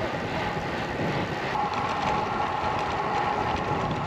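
Wind rushing over the microphone and tyre noise while riding road bikes on a paved path: a steady rushing noise with a faint steady hum in it.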